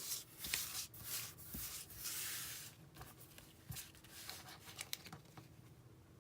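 Paper die cuts and cardstock rustling and sliding as they are handled and set down, in a run of short swishes and light taps.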